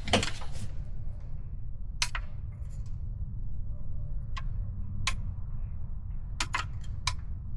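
Scattered sharp clicks and taps of hand tools and metal parts, about seven in all with a cluster near the end, while the old alternator is worked free of the engine. A steady low rumble runs underneath.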